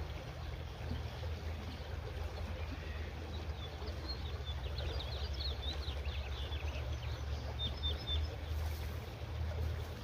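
Low wind rumble on the microphone over the flow of a small creek, with songbirds chirping in quick high twitters from about a third of the way in until near the end.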